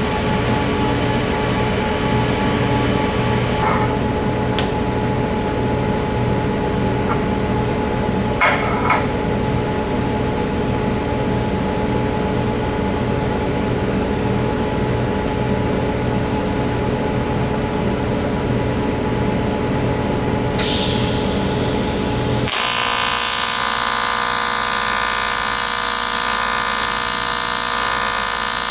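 A power tool runs steadily with a low hum and a few short clicks. About 22 seconds in, an AC TIG welding arc on aluminium strikes and buzzes harshly and high.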